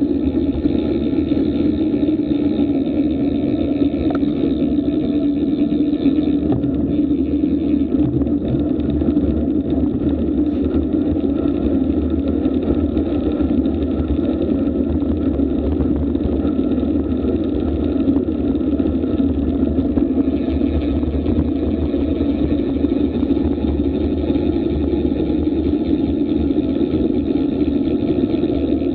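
Steady wind rushing over an action camera's microphone on a fast road-bike descent at around 25–30 mph.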